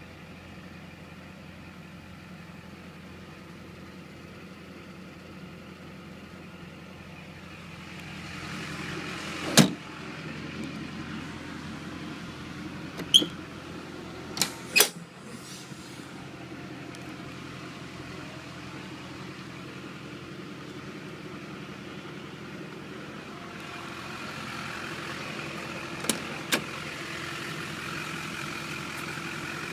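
Duramax V8 turbo-diesel idling steadily in a Hummer H1, heard around the truck's body. Sharp clicks of door and latch hardware cut through it, one about a third of the way in, a few more shortly after, and a quick pair near the end.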